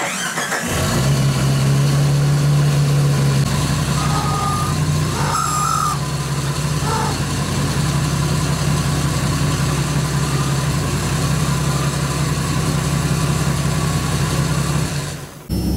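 1990 Jeep Cherokee's 4.0-litre straight-six engine catching within about a second and then idling steadily. This is its first start after a head gasket replacement. It idles a little faster for the first few seconds, then settles, and cuts off abruptly near the end.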